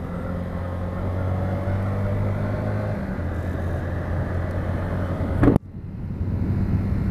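Small motorcycle engine running steadily under the rider while riding, with road and wind noise; its note shifts about three seconds in. About five and a half seconds in there is a sudden thump and the sound drops off abruptly, then builds back up.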